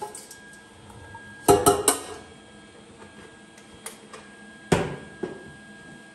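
A few sharp metal clanks from welding gear and sheet-metal air cleaner parts being handled and set down on a concrete floor: a quick run of three or four about a second and a half in, then one more with a lighter echo of it near the end.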